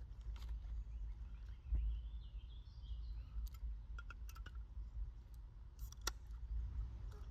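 A low rumble throughout, with several sharp knocks and clicks and faint bird chirps.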